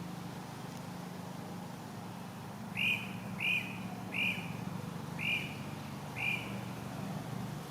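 A bird calling five short chirps, about a second apart, over a steady low hum.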